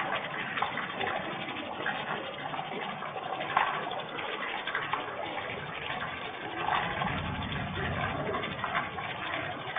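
Steady rain pattering, a dense hiss of many small drops, with a low swell of sound about seven seconds in.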